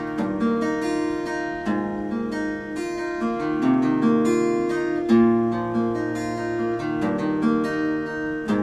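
Acoustic guitar music: a quick run of plucked and strummed notes.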